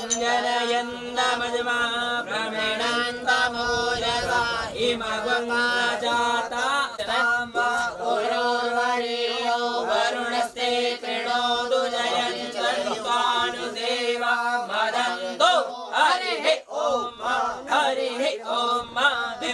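Hindu mantras chanted in a sing-song recitation, with a steady held tone underneath that stops about fifteen seconds in.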